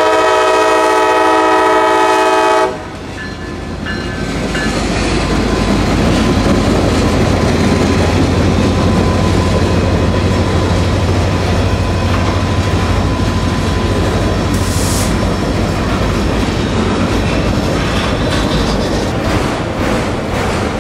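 Diesel freight locomotive's air horn blowing a chord, cut off nearly three seconds in. Then the freight train rolls past: the locomotive's engine and the cars' wheels rumbling and clattering over the rail joints.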